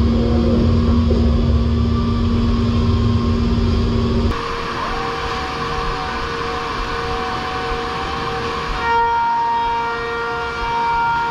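Holzher Pro-Master 7125 five-axis CNC router running: a steady machine whine with a heavy low rumble, the rumble dropping away and the whine jumping higher about four seconds in, then jumping higher again near nine seconds.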